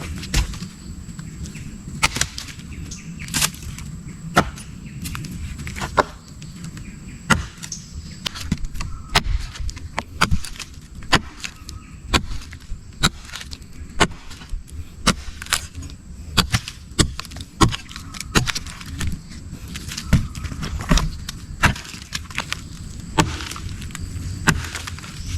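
Irregular sharp snaps and knocks, about one or two a second, over a low steady rumble.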